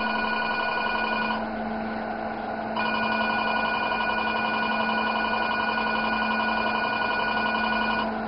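Steady electronic warning tone of a Velure S5 532 nm diode laser, sounding while the laser fires through its Mixto VX scanner. The tone breaks off for about a second and a half near the start, resumes, and stops just before the end, over a low steady hum.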